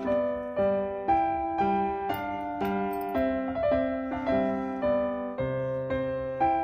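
Background piano music: a gentle melody of single struck notes, about two a second, each fading before the next.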